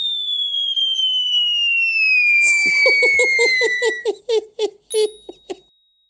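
Cartoon sound effects: a long whistle sliding steadily down in pitch for about four seconds. Partway through it, a quick run of short repeated squeaky notes starts, about four a second, which then thins out and stops.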